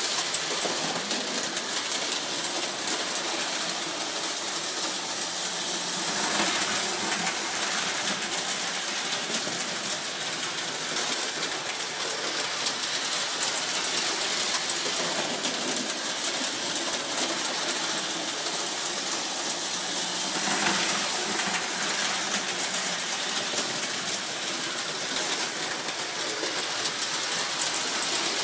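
Early postwar Lionel GG1 O-gauge model electric locomotive and its cars running on three-rail tinplate track: a steady motor whir with the fine clatter of wheels on the rails, swelling briefly twice as the train passes close, about six and about twenty seconds in.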